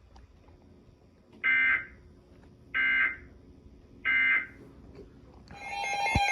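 Three short bursts of Emergency Alert System end-of-message data tones, a raspy buzz of two rapidly alternating pitches repeated about a second and a quarter apart, marking the end of the alert. Music fades in near the end.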